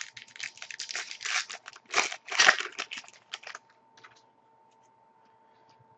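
Hockey trading cards and their pack being handled: a dense run of rustling, crinkling and flicking clicks for about three and a half seconds, then only a few faint ticks.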